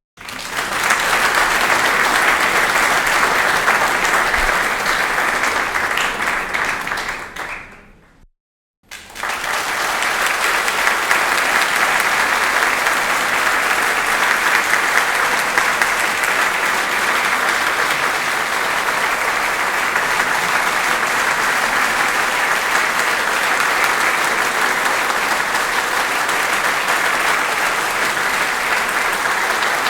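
Audience applause in two separate rounds: the first lasts about eight seconds and fades out, then after a short silent gap a second, steady round of clapping starts and keeps going.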